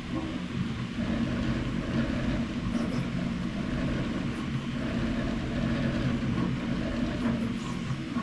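Three 3D printers running the same job in sync: the stepper motors give a steady mechanical whir whose pitch shifts every second or so as the print heads change moves.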